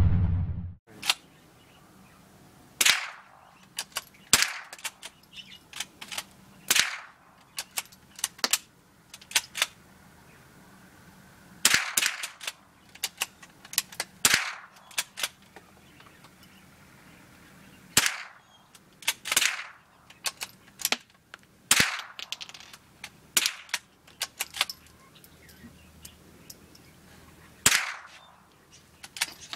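.22 rimfire rifles firing single shots in a long irregular string, two shooters taking turns. Sharp cracks come about a second or more apart, some loud and some fainter.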